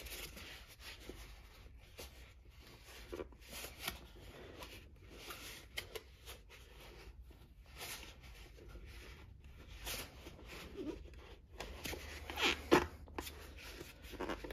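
A closed-cell foam insert being forced by hand into a stiff rubber RC monster truck tire: irregular rubbing and scuffing of foam against rubber, with a few louder scrapes about twelve seconds in.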